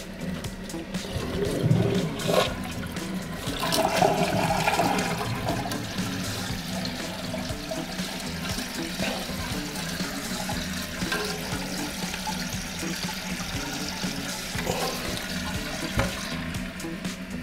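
Toilet flushing about four seconds in, then a steady hiss of the tank refilling through the fill valve. A few plastic clicks from parts inside the tank come just before the flush. The float is being adjusted to set the tank's water level.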